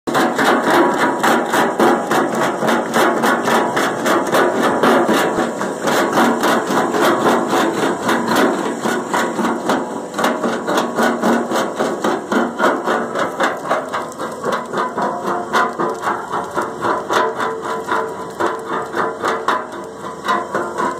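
Skid steer roll crusher bucket crushing hard rock: a continuous run of sharp cracking knocks, a few a second, over the skid steer's engine.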